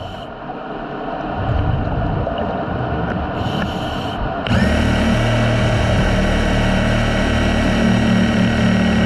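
Underwater power tool motor: after a quieter pause it spins up with a rising whine about halfway through and then runs steadily with a low hum.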